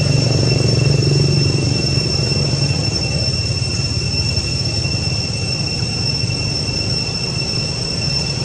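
A loud, steady, high-pitched whine held on one unchanging tone, over a continuous low hum.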